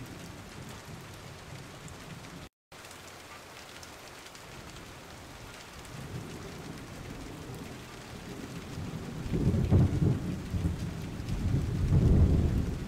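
Steady hiss of rain with low rolling thunder that swells louder in the last few seconds. The sound cuts out completely for a moment at about two and a half seconds.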